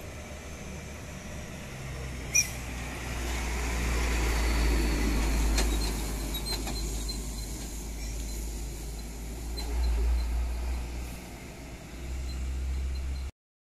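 Heavily loaded diesel truck passing close by, its low engine rumble swelling as it comes up and goes past about five seconds in, with a second swell near ten seconds in as another truck comes on. A sharp click about two seconds in; the sound cuts off abruptly near the end.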